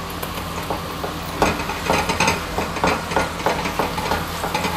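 Chopped onions sizzling in hot oil in a non-stick wok as garlic and ginger paste goes in. From about a second and a half in, a spatula stirs and scrapes through the pan in short, irregular knocks over the steady sizzle.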